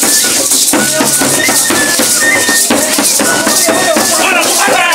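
Many hand rattles shaken together in a steady dance rhythm by a crowd of costumed chamula dancers, with voices calling out over them.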